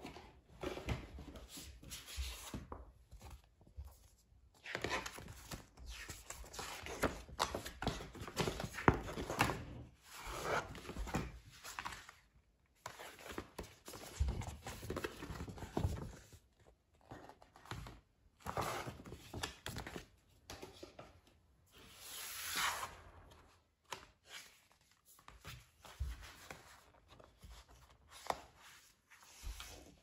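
Hands handling paper and card: a folded glossy poster and cardboard album packaging rustling and sliding on and off, with a stronger sliding swish about three-quarters of the way through.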